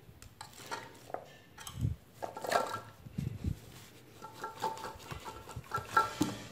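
Hands turning and pressing sâm đại hành bulbs and fish pieces in a stainless steel pot, giving scattered soft knocks and clinks against the metal, with a few short metallic rings in the latter half.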